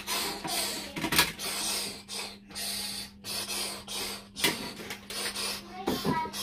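A child making hissing, spray-like transforming sound effects with his mouth in short repeated bursts, with the clicks of plastic toy parts as a Transformers Cyberverse Grimlock figure is changed into robot mode by hand.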